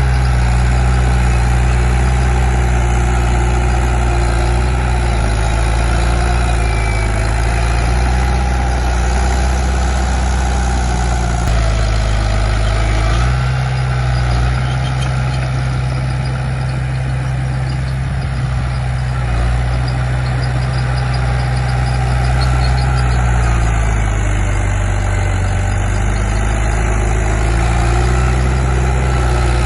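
Heavy diesel engine of earthmoving machinery running continuously, its pitch dipping and rising again twice, about halfway through and near the end.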